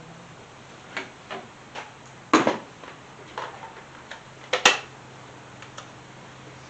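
Irregular sharp clicks and knocks of parts and tools being handled and moved about in a car's engine bay while searching for a dropped bolt. About seven of them, the loudest two about two and a half and four and a half seconds in.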